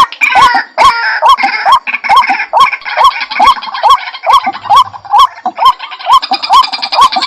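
White-breasted waterhen (ruak-ruak) calling continuously, a fast, even run of harsh, rasping 'ruak' notes, about two to three a second, as used in a bird-lure recording.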